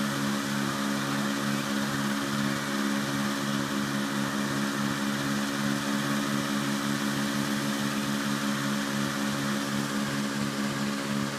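Petrol-engine inflator fan running steadily, blowing cold air into a hot air balloon envelope during cold inflation: a low engine hum under an even rush of air.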